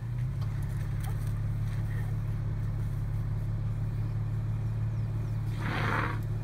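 Steady low hum of a car engine idling, heard from inside the car. About six seconds in comes one short breathy blast, an African elephant blowing air through its trunk.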